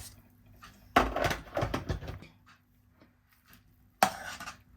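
Two sudden knocks of a pot or lid being handled on the stove, the first about a second in followed by a second of clattering, the second near the end.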